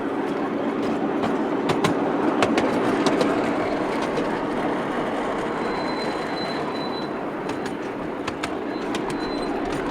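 Miniature railway train running slowly along its track: a steady rumble with irregular clicks of the wheels over the rail joints. A faint high wheel squeal comes about six seconds in and again near the end.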